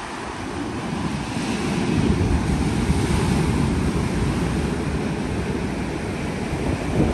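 Surf breaking on a sandy beach, a steady wash that swells about a second or two in, with wind buffeting the microphone.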